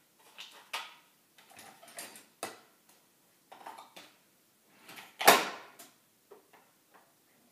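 Clicks, knocks and clatter of a single-serve coffee maker and cup being handled on a kitchen counter, with one loud clack a little over five seconds in.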